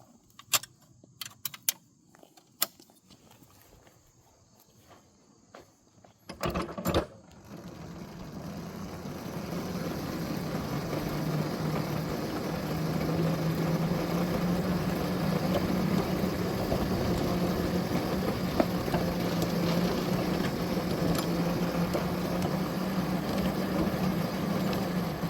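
A few scattered clicks, then a couple of sharp clunks about six and a half seconds in as an engine starts. It then runs steadily with a low hum, getting louder over the next several seconds and holding.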